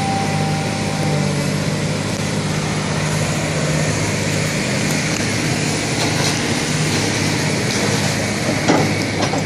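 Heavy construction machinery running steadily: a tracked excavator's diesel engine with a low, even hum under a constant hiss, with a short knock or two near the end.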